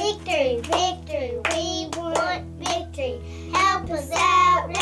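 Two young girls chanting a cheerleading cheer in a sing-song rhythm, clapping their hands on the beat about twice a second.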